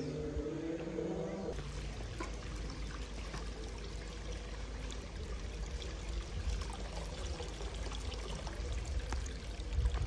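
Water poured from a wooden ladle into a stone basin, trickling and splashing, over a low rumble.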